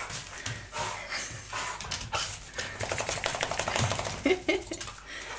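A freshly bathed dog scrambling and rubbing itself on a rug over a tiled floor, its claws clicking and scuffling in quick, uneven taps, with some panting. This is the excited dash-about of a dog just out of the bath.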